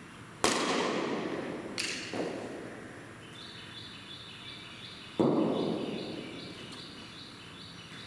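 Cricket ball impacts during net practice: a sharp crack of the leather ball on the bat about half a second in, a knock and a thud around two seconds in, and a duller thud just after five seconds. A high chirp repeats about twice a second from about three seconds in.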